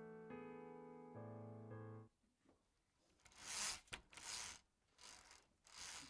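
Keyboard piano chords, held and changed a few times, cut off about two seconds in. After a short pause come four short rustling swishes, one with a sharp click, typical of hand-made sound effects.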